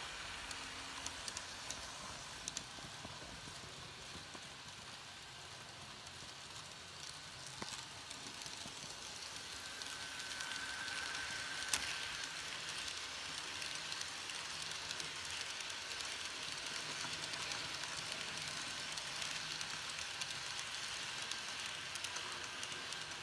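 Fleischmann N-scale model trains running on the track, with digital sound switched off: a steady hissing rumble of wheels and motors, with light clicks over the rail joints. It grows louder about eight to twelve seconds in as the container train runs close by, with a brief thin whine around then.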